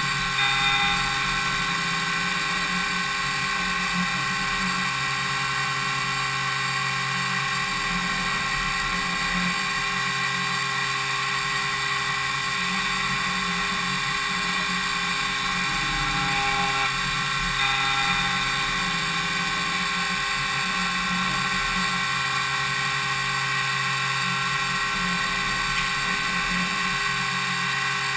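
Spindle of a DMU 70V five-axis CNC machining centre running while milling impeller blades, a steady high-pitched whine with many tones. The cut changes briefly near the start and again about two-thirds of the way through.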